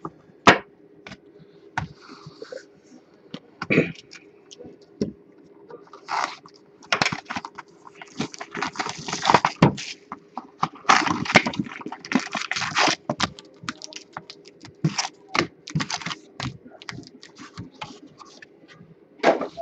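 A cardboard trading-card box being handled and opened by hand: a run of sharp clicks and taps, with longer scraping and rubbing of cardboard flaps in the middle stretch.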